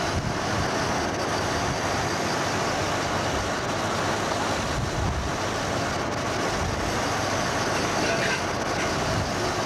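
Steady rushing outdoor noise with uneven low rumble, and faint voices in it.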